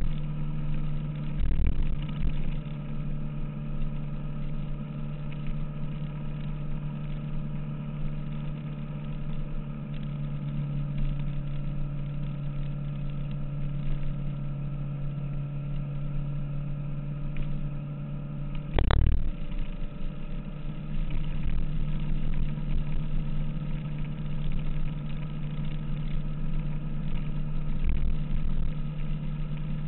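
2006 Kawasaki ZX-6R's inline-four engine running at a steady, even pitch while the bike cruises, with uneven low wind rumble on the microphone. A single short thump about two-thirds of the way through.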